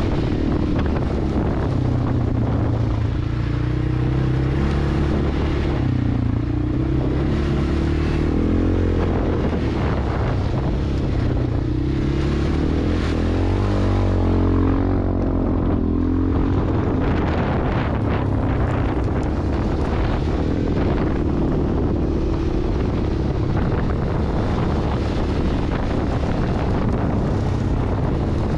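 CFMOTO 600 ATV's single-cylinder engine running under load on a trail ride, its revs rising and falling repeatedly through the middle stretch as the throttle is worked. Wind buffets the helmet-camera microphone throughout.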